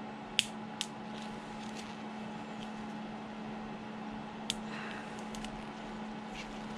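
Small side cutters snipping cured resin print supports off a 3D-printed engine model: a handful of short, sharp clicks, the clearest about half a second and four and a half seconds in, with fainter snips between, over a steady low hum.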